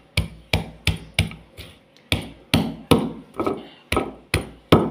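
Stone pestle pounding whole shallots, garlic and ginger in a stone mortar (cobek), a steady run of knocks at about two to three a second. This is the crushing stage of the spice paste, done before it is ground smooth.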